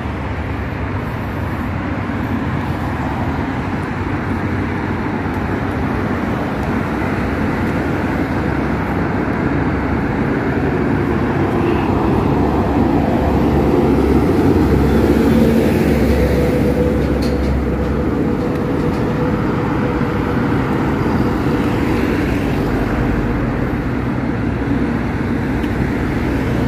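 Steady road traffic noise from passing cars, swelling to its loudest about halfway through as vehicles go by close, then easing.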